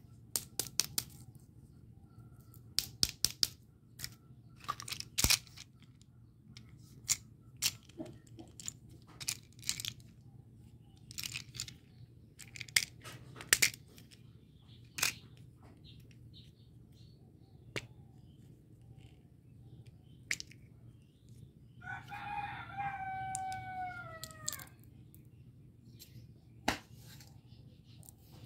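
Hands handling plastic candy holders, capsules and wrapped lollipops, making many sharp clicks and taps. About three quarters of the way in, a rooster crows once for about two and a half seconds, its call falling in pitch at the end.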